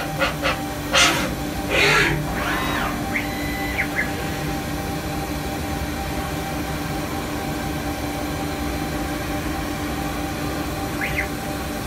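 Solder paste stencil printer running its paste-kneading cycle: a steady machine hum, a few short noisy whooshes in the first two seconds, then drive whines that rise and fall in pitch, one holding steady for about half a second before winding down.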